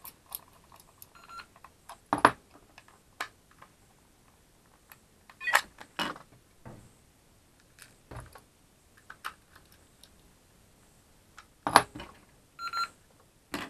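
Hard plastic clicks and knocks from a handheld PMR radio's case and battery cover being handled and fitted together during reassembly, with a small screwdriver in use. The sharp knocks are irregular and the loudest come about two seconds in, around six seconds in and near the end, where a brief high tone is also heard.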